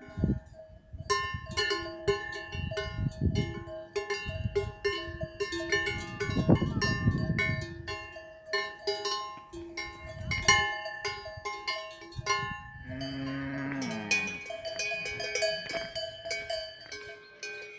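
Large bells on the collars of grazing cows, clanging irregularly and ringing on as the cows move their heads. A cow moos once about thirteen seconds in, its pitch falling.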